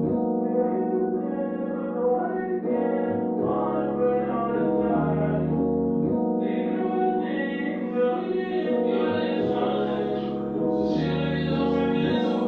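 Background music: sustained chords over a bass line that changes every couple of seconds, with a melody line that may be singing.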